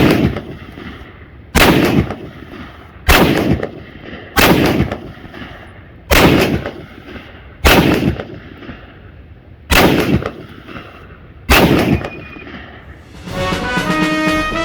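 M1 Garand rifle fired eight times, one shot every one and a half to two seconds, each with a short echo. Music comes in near the end.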